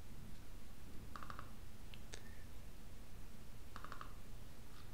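Computer mouse clicks, double-clicking to open folders: a quick double-click about a second in, a single click near two seconds and another double-click near the end.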